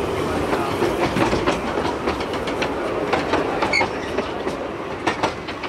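Narrow-gauge train running along the track: a steady rumble with irregular clicks and clatter from the wheels over the rail joints.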